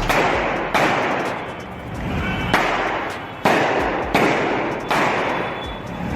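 About six gunshots at uneven intervals over five seconds, each a sharp crack followed by a long echoing tail.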